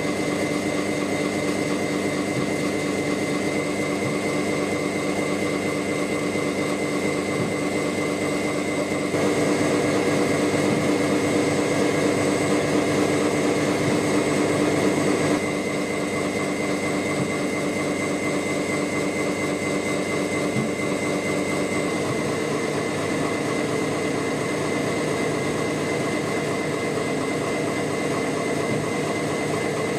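Gear hobbing machine running, its hob cutting the teeth of a gear: a steady machine hum with a fast, even chatter. It grows louder for about six seconds in the middle.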